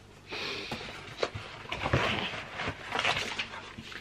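Rustling and handling of gift packaging, with small scattered knocks and clicks.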